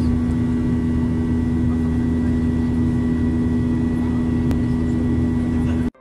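Airliner cabin noise during the approach: engines and rushing air running steadily, with a constant low hum and a faint high tone. It cuts off abruptly just before the end.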